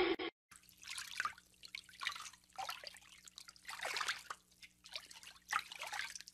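Shallow water splashing and trickling in short, irregular bursts, roughly one a second, as a corgi and a person wade through it.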